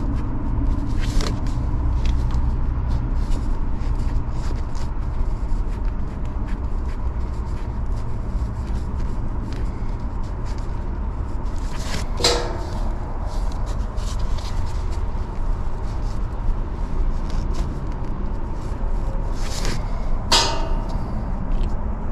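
Steady low rumble with small clicks of hand tools working at an air-conditioning refrigerant service valve, and two sharper metallic clinks with a short ring, about twelve seconds in and near the end.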